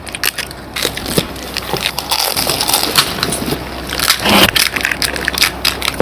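Crisp fried fuchka (pani puri) shells crackling and crunching as they are poked open by hand and chewed, a run of many quick sharp cracks, thickest about four seconds in.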